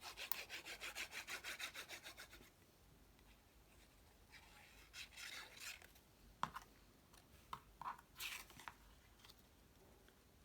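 Quick back-and-forth rubbing on cardstock, about nine strokes a second for roughly two and a half seconds, pressing a freshly glued paper piece down. This is followed by a few soft scuffs of paper being handled and a single light click.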